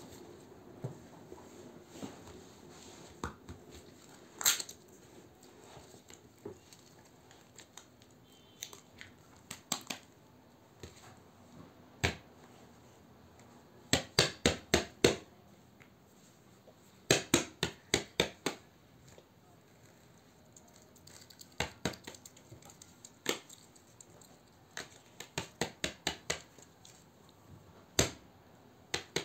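Quick sharp taps in runs of four or five, about three a second, with scattered single taps and quiet between them: a hand tapping on the paper trading sheet and the plastic slime tubs.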